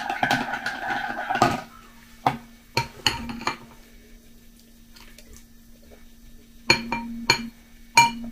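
A teaspoon stirring quickly in a ceramic mug, clinking against its sides with a ringing tone, stops about a second and a half in. Then a spoon clinks against a glass bowl in separate single taps, four close together and three more near the end.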